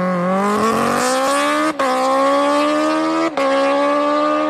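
Kawasaki Ninja H2's supercharged inline-four engine accelerating hard, its pitch rising steadily, with two brief cuts for upshifts about two seconds in and again at about three and a half seconds.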